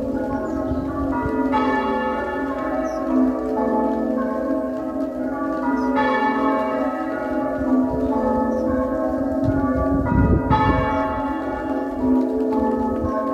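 Church tower bells rung muffled, with pads on the clappers: strokes follow one another in a continuous round, their long ringing tones overlapping, and some strokes ring out brighter than the rest. Muffled ringing is the traditional sound of mourning, matching the flag at half-mast.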